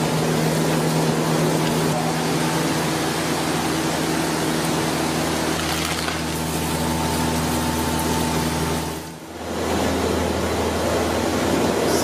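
Steady rushing noise of a large gas cooking burner running under a big pot, with a low steady hum under it; it dips briefly about nine seconds in.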